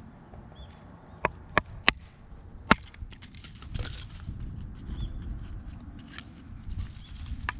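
Firewood being split into kindling: four sharp knocks of wood being struck in the first three seconds, then softer knocking and handling of the wood, with faint bird chirps.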